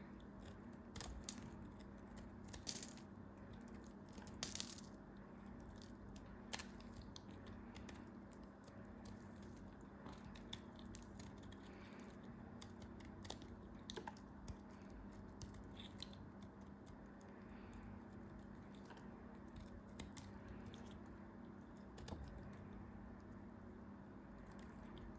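Faint handling sounds: scattered soft clicks, crackles and crinkles, a few louder ones spread through, over a steady low hum.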